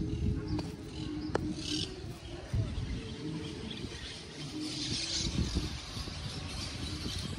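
Low rumble of wind and rolling noise from riding a bicycle along a dirt path, with faint high-pitched chirping in the background that is strongest about five seconds in.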